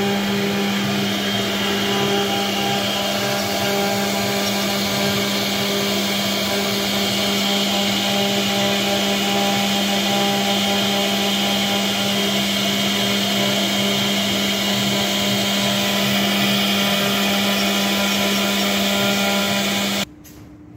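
Air-cooled 3.5 kW HQD spindle of a CNC router running steadily with a constant whine, its bit carving a relief into a board. The sound cuts off suddenly near the end.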